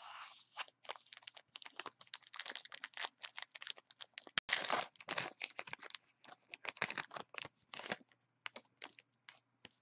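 Crimped, foil-lined trading card pack wrapper being torn open and crinkled by hand: a dense run of crackling and tearing that thins to a few scattered rustles near the end.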